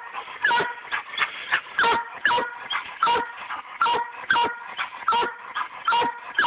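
Black and tan coonhound barking treed: a steady run of short, sharp barks, about two a second without a break, the bawl of a hound treeing hard.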